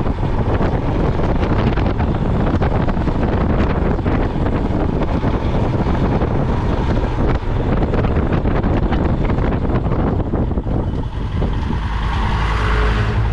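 Royal Enfield Himalayan's single-cylinder engine running under throttle while riding, with heavy wind buffeting on the microphone.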